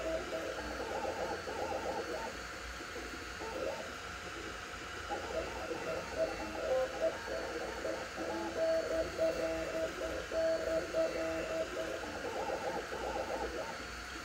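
Two Trees Sapphire Plus CoreXY 3D printer printing at 130 mm/s: its stepper motors whine in short tones that keep jumping in pitch as the print head changes direction, over a steady fan hiss.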